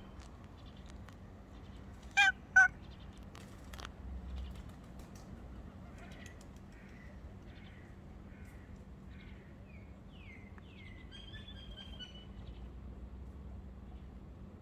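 Birds calling: two short, loud, harsh calls half a second apart about two seconds in, then a run of faint short chirps, about two a second, and a higher call near the middle.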